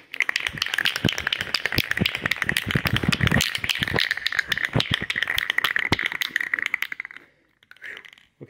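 Aerosol spray paint can (rattle can) being shaken hard, its mixing ball clacking rapidly inside to mix the paint before spraying; the rattling stops about seven seconds in.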